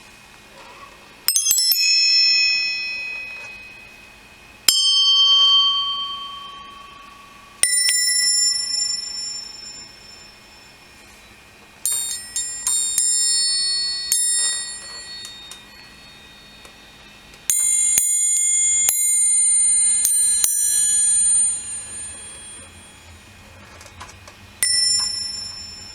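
Small metal bells struck singly and in quick clusters, each stroke ringing out high and bright and dying away over a couple of seconds. Around the middle several strokes overlap and ring together for a few seconds.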